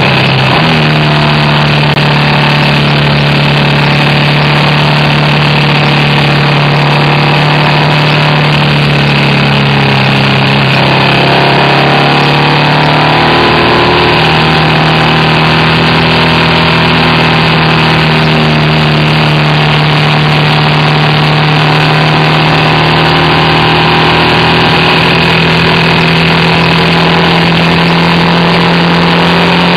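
BMW R1200RT's flat-twin boxer engine pulling the bike along a winding road, heard over a steady rush of wind and road noise. The engine note steps up just after the start, sinks slowly for about ten seconds, then rises again and holds steady for the rest.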